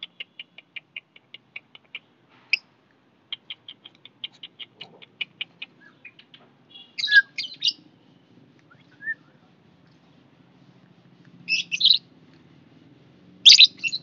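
Lovebirds chirping: a fast, even run of short high chirps, about six a second, then several louder, harsh squawks around the middle and near the end.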